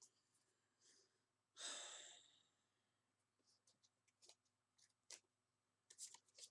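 Near silence, broken by a single breath out, a sigh, about two seconds in, then a few faint soft clicks of tarot cards being handled.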